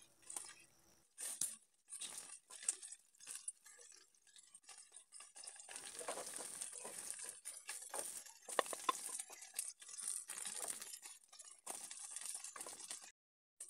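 Wooden spatula scraping and tapping in a non-stick frying pan as fried tomato slices are lifted out onto a plate, with scattered clicks and knocks. From about six seconds a steady faint hiss of oil still frying in the pan runs under it.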